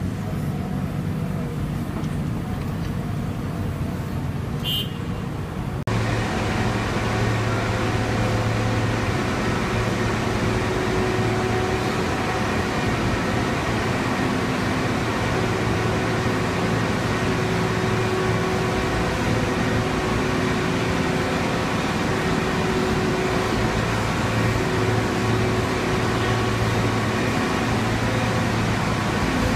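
Hitachi Zaxis 350LC excavator's diesel engine and hydraulics running steadily under load as the telescopic arm works. About six seconds in the sound steps up to a louder, steady hum with several held tones that rise and fall slightly in strength.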